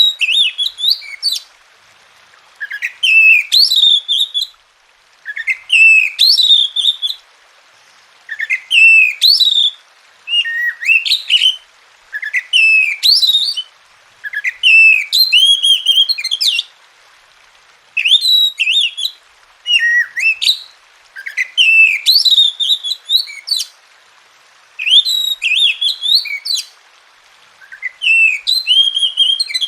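Oriental magpie-robin (kacer) singing: a string of rich whistled phrases of rising and falling notes, each lasting a second or two and repeated every two to three seconds, with short pauses between them.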